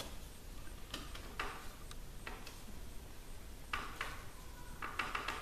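Light handling clicks, scrapes and rustles as plastic-gloved hands press a glued wooden padeye cup into its hole in a wood-strip kayak deck. A handful of short, scattered clicks, with a small cluster near the end.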